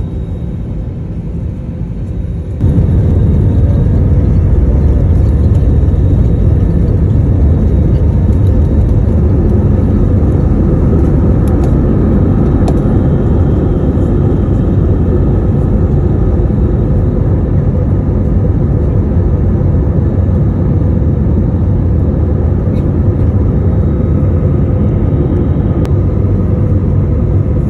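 Airbus A320-family jet airliner's engines at takeoff power, heard from a cabin seat beside the engine: loud, steady engine noise with a heavy low rumble. It jumps up suddenly about two and a half seconds in and holds through the takeoff roll and the climb.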